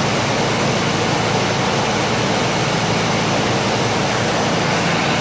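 1989 Jeep Wrangler's carbureted engine running smoothly at a steady fast idle during cold-start warm-up, as its electric choke opens.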